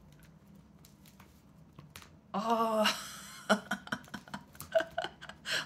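Shiba Inu chewing and gnawing at the face of a knitted striped toy, heard as a run of small sharp clicks in the second half. A short voice sounds about two and a half seconds in.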